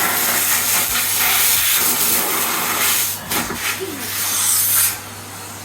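Henry vacuum cleaner running: a loud, steady rushing hiss of air over a low motor hum, which drops away about five seconds in.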